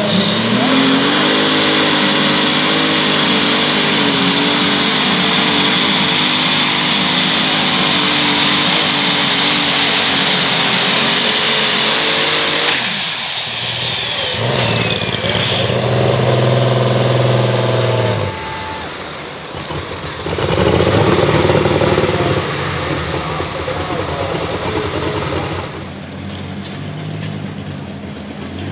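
Light super stock pulling tractor's turbocharged engine at full power under sled load, with a high steady turbo whistle over the engine noise. About thirteen seconds in the engine drops off and the whistle falls away. After that, quieter engine idling and revving.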